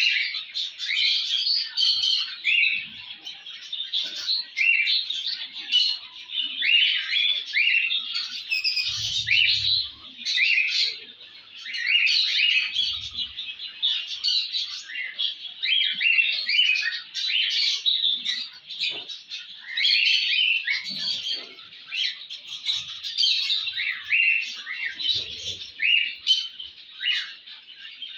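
A flock of small cage songbirds in an aviary chirping and twittering all at once, a dense, unbroken chorus of short high chirps.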